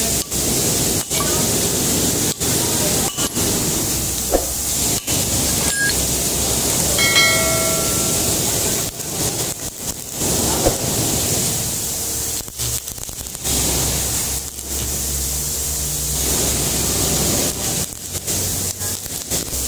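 Stick welding arc burning against a galvanized steel pipe: a steady crackling hiss with brief breaks now and then. A short pitched tone sounds about seven seconds in.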